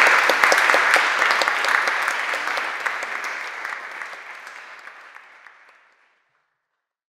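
Audience applauding at the end of a lecture, a dense patter of many hands clapping that steadily fades and dies out about six seconds in.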